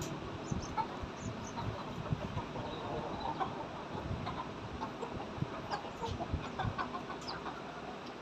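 A flock of domestic chickens clucking softly as they forage, with short calls scattered all through and frequent light knocks.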